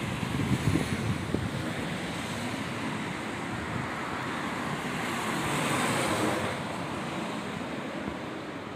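Wet-street traffic ambience: a steady hiss of tyres on wet asphalt that swells as a car passes about six seconds in, then fades. There are a few low thumps near the start.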